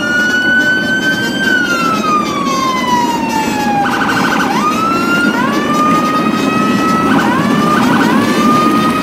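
Electronic siren wailing: one tone rises, holds, then slowly falls, breaks into a fast warble about four seconds in, and rises again to hold steady, over a continuous low rumble.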